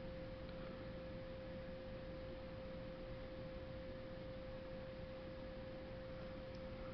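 A faint steady tone at one pitch, a hum held without change over low background hiss.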